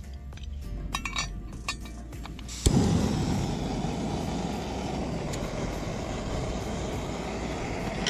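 Metal clinks of camp pots and a canister stove being handled, then a sharp click about two and a half seconds in as the gas canister stove lights and burns with a loud, steady hiss.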